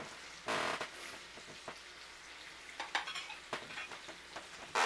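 A spoon stirring and scraping pancake batter in a plastic bowl, a few short scrapes and clicks, over a faint sizzle of pancakes frying on a cast iron griddle.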